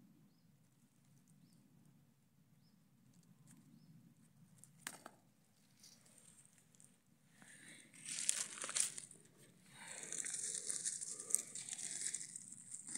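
Rustling and crackling of dry leaf litter and forest undergrowth being brushed through, quiet at first and then loud and busy from about halfway in. There is a single sharp click a few seconds before the rustling starts.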